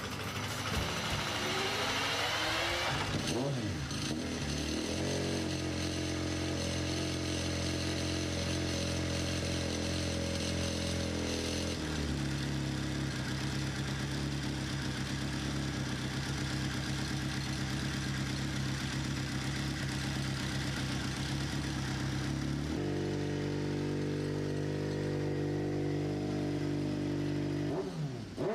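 Kawasaki Ninja ZX-RR MotoGP prototype's inline-four engine, revved up and down at first. It then runs at steady revs that step to a new speed a few times, with more revving at the very end.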